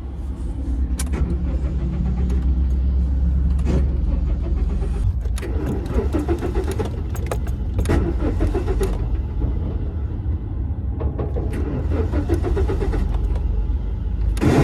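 Car engine being cranked by its starter motor in two long spells without catching, over a steady low rumble, with sharp clicks and jingling from the ignition key: the stalled car will not start.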